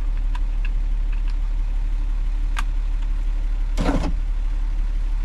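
Steady low hum from the car, with a few light clicks and two short scraping rustles as the replacement power-window master switch is handled and fitted.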